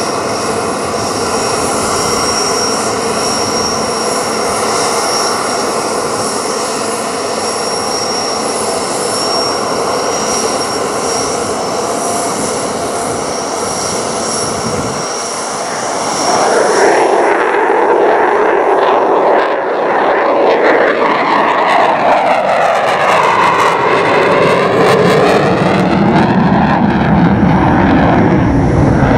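Boeing F/A-18F Super Hornet's twin General Electric F414 turbofan jet engines: a steady high-pitched whine as the jet comes in. About halfway through it swells into a louder roar with a sweeping, phasing sound as the jet passes and climbs away.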